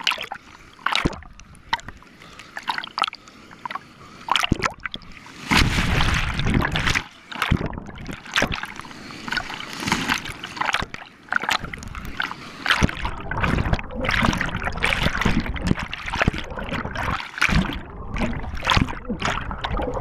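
River water splashing and sloshing over a waterproof action camera at the surface in rapids. There are separate splashes at first, then a continuous churning rush from about five seconds in.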